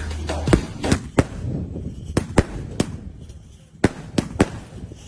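Firecrackers going off in an irregular string of sharp cracks, about a dozen in all, some close together, with music fading out over the first second.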